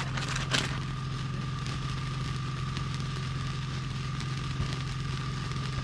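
Steady low mechanical hum of a motor or engine running, with a faint high whine above it. There are two short clicks in the first second.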